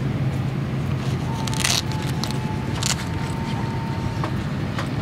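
Steady low hum of a parked airliner's cabin, with scattered clicks and a brief rustle of bags and clothing as passengers move about. A faint thin steady tone sounds for about two seconds partway through.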